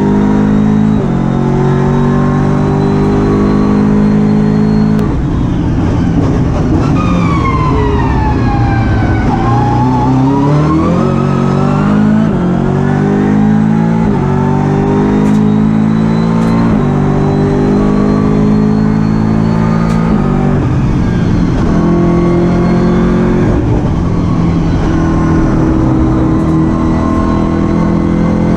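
BMW M6 GT3's twin-turbo V8 heard from inside the cockpit, loud and continuous under hard acceleration. Its pitch climbs and then drops in sudden steps at each quick upshift. About a third of the way in, the pitch sinks smoothly and climbs again as the car slows for a corner and drives out.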